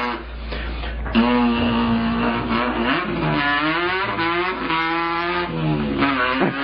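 A person imitating a car engine with the voice, revving up through the gears: the pitch climbs, drops and climbs again several times.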